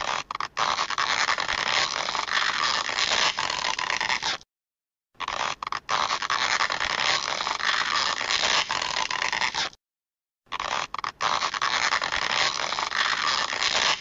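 A 'stretching' sound effect played three times in a row. Each is a rough, noisy stretch sound about four and a half seconds long, with two brief dropouts just after it begins and a short silence before the next.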